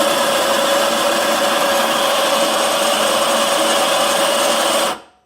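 Anfim Super Caimano espresso grinder's motor running steadily as it grinds a dose of coffee into the portafilter, then cutting off sharply about five seconds in when its timed grind ends. The dose comes out at about 18 grams.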